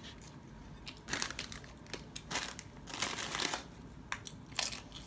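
A plastic snack-chip bag crinkling in a few short bursts as a hand reaches in and pulls out a chip.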